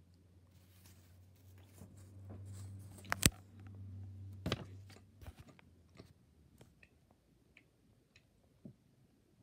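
A sheet of sandpaper being picked up and handled over newspaper, rustling, with two sharp clicks about three and four and a half seconds in. A low steady hum runs underneath and stops about six seconds in.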